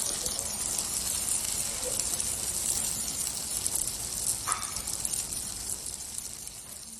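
Stuffed green chili peppers frying in oil in a pan, a steady crackling sizzle that fades out near the end, with a brief clink about four and a half seconds in.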